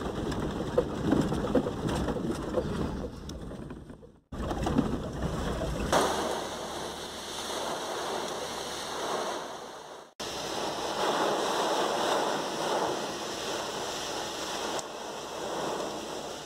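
Violent downburst storm wind gusting through trees. A low rumble of wind buffeting the microphone breaks off abruptly about four seconds in, and the sound then turns to a steady rushing hiss of wind, with another sharp cut about ten seconds in.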